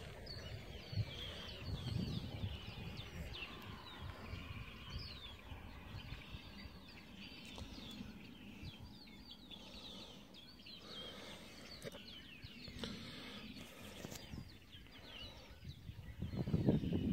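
Many small birds chirping over one another in short rising and falling calls, over a low rumbling noise that grows louder near the end.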